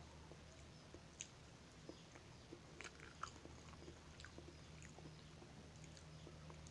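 Faint chewing of fried banana: scattered soft mouth clicks and smacks, a few slightly louder around a second and three seconds in, over a steady low hum.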